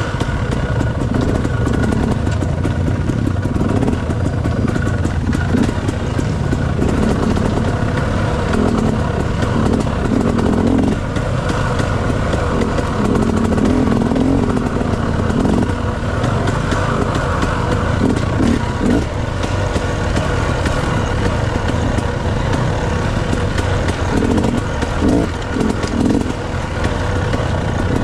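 Dirt bike engine running steadily while riding, with small changes in its note.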